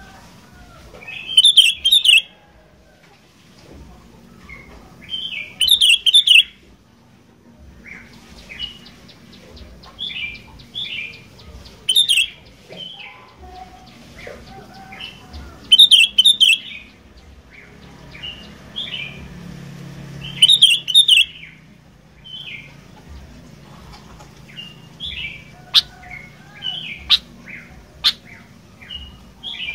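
Sooty-headed bulbul (kutilang) singing vigorously: loud bursts of song come roughly every four seconds, with softer chirps between them. A few sharp clicks sound near the end.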